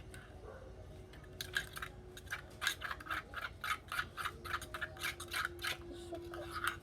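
Slime being mixed in a container: a run of rhythmic rubbing, squishing strokes, about four a second, starting about a second and a half in.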